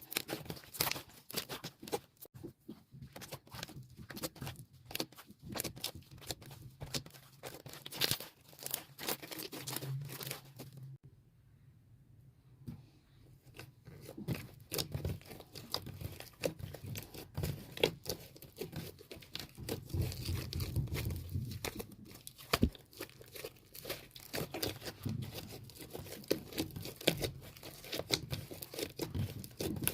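Soft white slime squished and pressed by hand, making a dense, irregular run of small sticky clicks and crackles, with a brief lull about eleven seconds in.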